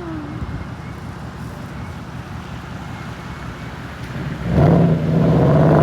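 Ford Mustang 5.0-litre V8 rumbling low and steady. About four and a half seconds in it comes on the throttle, and the exhaust gets suddenly much louder and stays loud.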